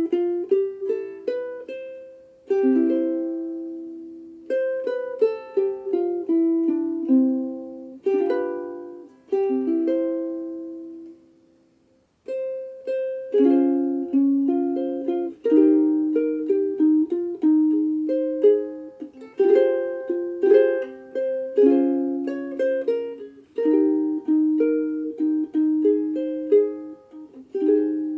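Sumi UK-3M soprano ukulele with a Honduras mahogany body, played solo in picked notes and chords. The playing stops about halfway through and the notes ring out to silence, then it picks up again at a busier pace.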